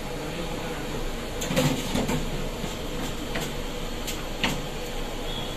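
Metal frying spider knocking and scraping on a stainless-steel counter as fried chips are tipped out of it: a handful of sharp clicks and knocks, the loudest about one and a half seconds in, over a steady background hum.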